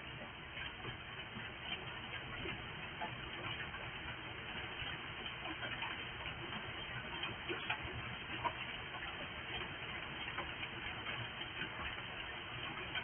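Hail and rain pelting down: a dense, irregular patter of small ticks and clicks over a steady hiss, with a few sharper knocks a little past the middle. Heard through a doorbell camera's microphone, which cuts off the high end.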